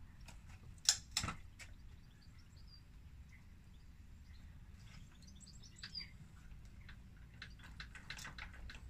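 Kickstart of a Honda QR50 mini bike being kicked, with two sharp knocks about a second in and a run of quick clicks near the end, and the small two-stroke engine not firing. Birds chirp faintly in the background.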